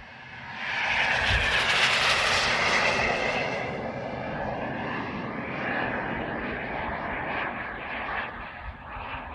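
Turbine-powered RC model jet (a Rafale with a KingTech turbine) passing close by. It builds quickly, with its loudest, hissing part between about one and three and a half seconds in, then drops back to a steadier, lower jet noise as it moves away.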